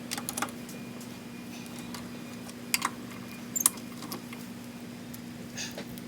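A few scattered light clicks and clinks of tools being handled while getting a car ready to jack up, over a faint steady hum.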